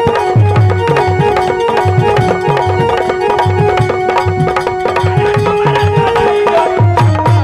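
Live Bidesiya folk dance music: a fast, driving drum rhythm with quick groups of deep drum strokes, under a held melody line that steps between a few notes.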